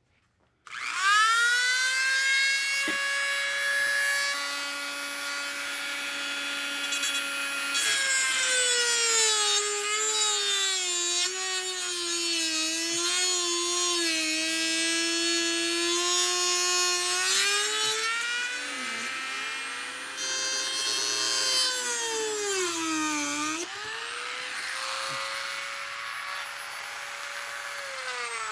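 Small high-speed rotary tool with a diamond cutting wheel spinning up to a high whine, then dropping to a lower, wavering pitch as it grinds into the furnace's refractory around the coil plates. The pitch climbs back between cuts and falls away as the tool winds down at the end.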